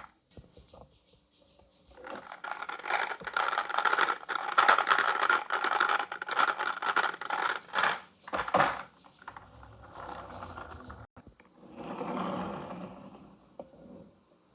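Marbles rolling and clattering down a wooden HABA marble run. A dense stretch of clicks and rattles starts about two seconds in and thins to softer, scattered rattling after about eight seconds.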